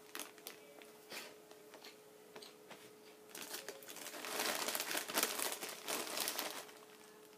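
A plastic crisp packet crinkling as a hand rummages in it, starting about three seconds in and dying away near the end, after a few faint clicks.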